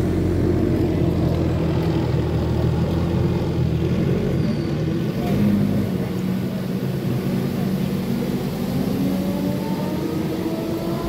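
A motor vehicle's engine running nearby with a steady hum, rising slowly in pitch over the last few seconds as it picks up speed.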